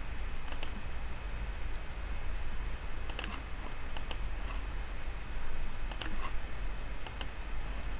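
Computer mouse button clicks, mostly in quick pairs like double-clicks, about five pairs spread over the stretch, over a faint steady low hum.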